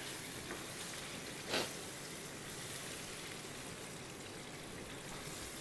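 Marinated chicken simmering in ghee and yogurt in a pan, a steady gentle sizzle as the yogurt's water cooks off. One brief tap about one and a half seconds in.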